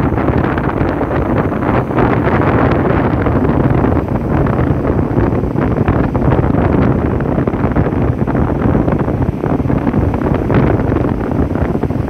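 Ocean surf breaking and washing up over a sandy beach, mixed with a heavy low rumble of wind buffeting the microphone.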